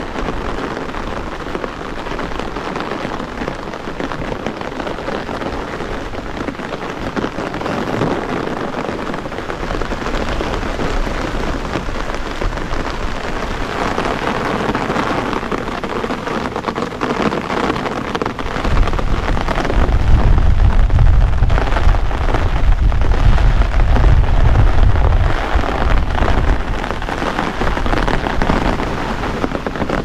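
Heavy rain pouring down, a dense steady hiss of drops. About two-thirds of the way through a deep low rumble joins in and the whole sound grows louder.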